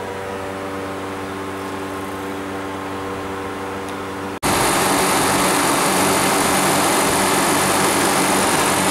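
Refrigeration condensing unit running: a steady electrical hum, then after an abrupt cut about four seconds in, a louder, steady running noise of the compressor and condenser fan.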